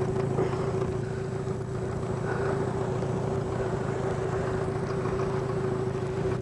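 Small boat's outboard motor running steadily at low speed, a constant even hum.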